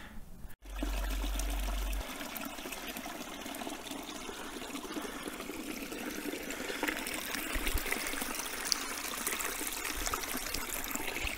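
Small mountain stream trickling and splashing over rocks, a steady water sound.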